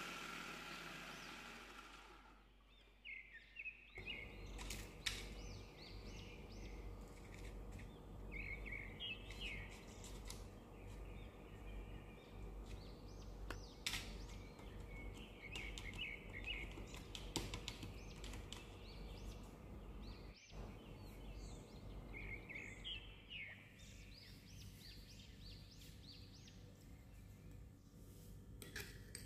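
An electric food chopper's motor stops in the first two seconds. After that, birds chirp in short runs again and again over a low steady hum, with a few sharp clicks.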